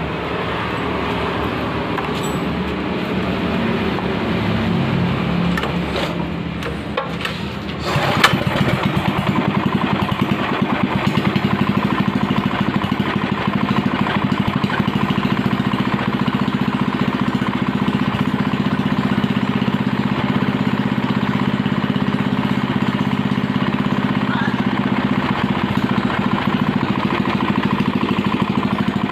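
A small engine running. About eight seconds in it steps up in level with a sharp knock, then runs steadily at an even idle.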